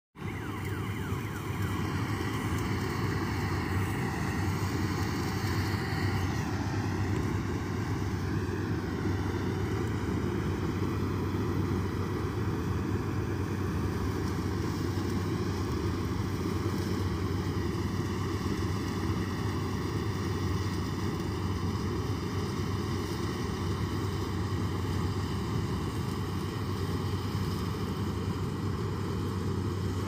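Malkit 997 combine harvester running under load while cutting and threshing a rice crop: a steady mechanical drone with a higher whine that wavers slightly in pitch.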